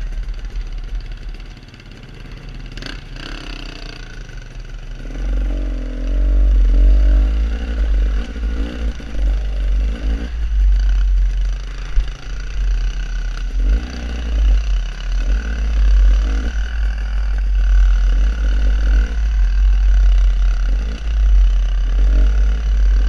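Dirt bike engine heard from a helmet-mounted camera, the throttle rising and falling as the bike climbs and picks its way over a rocky trail, with heavy wind rumble on the microphone. It is quieter for the first few seconds and grows louder about five seconds in, with a sharp knock near the middle.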